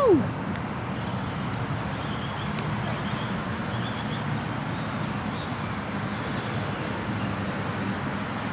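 Steady outdoor background noise with a low rumble of distant traffic and a few faint high chirps. It opens on the tail end of a short falling call.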